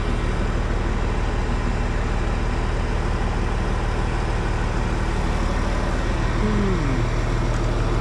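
Truck-mounted crane's diesel engine running steadily, powering the crane as it hoists a precast concrete wall panel.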